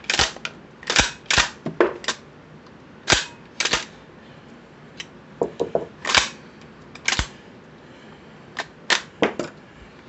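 Citadel PAT 12-gauge pump shotgun being racked by hand again and again. The slide makes a series of sharp metallic clacks, some in quick pairs, as it ejects unfired shells onto the bench. The gun is being cycled to check whether its chamber still sticks after polishing.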